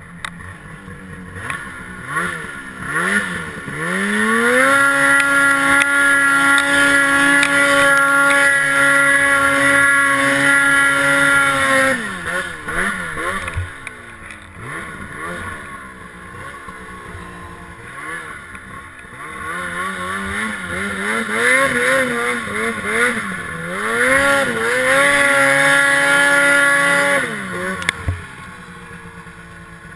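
Snowmobile engine revved in several short blips, then held at a steady high pitch for about seven seconds under load; it falls back, is blipped again a few times, climbs to a steady high pitch once more, and drops off a couple of seconds before the end.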